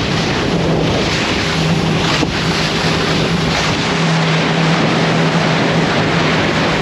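Boat running at speed on open water: a steady engine drone under heavy wind buffeting on the microphone and rushing water against the hull.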